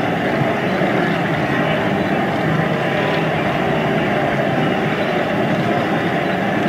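Steady, dense din of a massed wildebeest herd streaming down a riverbank at a migration crossing, many animals moving and calling at once.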